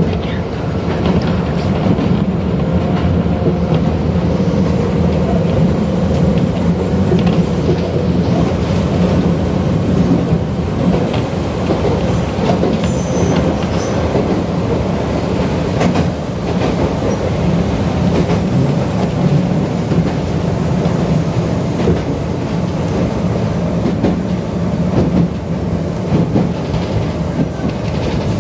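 Toyohashi Railway 1800 series electric train running steadily along the line, heard from inside the car: a constant rumble with an occasional clack of wheels over the track.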